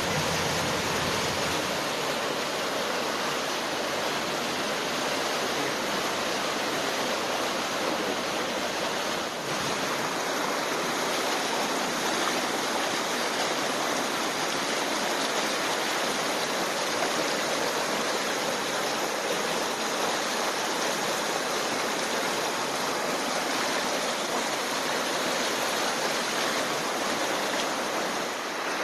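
Fast-flowing muddy floodwater rushing down a town street in a steady, loud rush of water.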